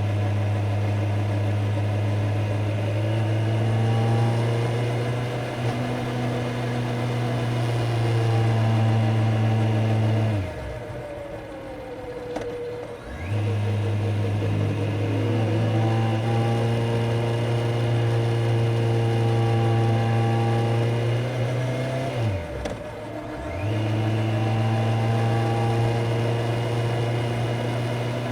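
Kawasaki Z900's inline-four engine running steadily under way. About ten seconds in, the note falls away for some three seconds as the revs drop and come back. It drops again briefly a little past twenty seconds before settling back to its steady note.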